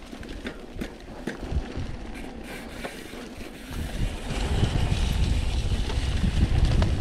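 Mountain bike riding over a dirt trail: sharp rattling clicks from the bike over rough ground, with wind rushing over the helmet camera's microphone that turns much louder about four seconds in.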